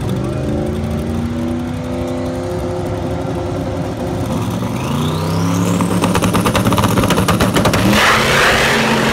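Turbocharged V8 of an LSX-swapped Mustang drag car running at the starting line. About five seconds in, the revs climb with a rising turbo whistle, then come a couple of seconds of rapid crackling pops as the engine is held on the launch limiter. Near the end there is a louder rush as the car launches.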